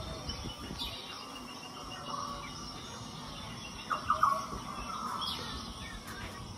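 Chirping animal calls: a quick run of chirps about four seconds in, with lighter chirps earlier, over a faint, steady high trilling.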